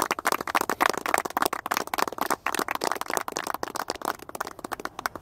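A small group clapping their hands in applause, many quick irregular claps that thin out and stop near the end.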